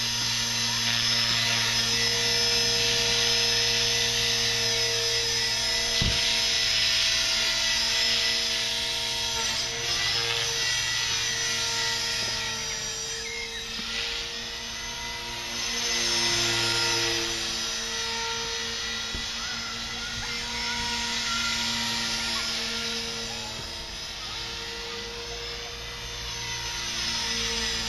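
Align T-Rex 450 Pro electric RC helicopter flying: a steady whine and hum from its brushless motor, gears and spinning rotors, growing louder and fainter as it moves about the sky.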